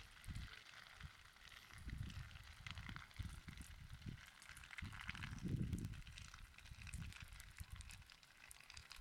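Faint outdoor ambience of wind rumbling on the microphone in irregular gusts, with faint scattered crackles.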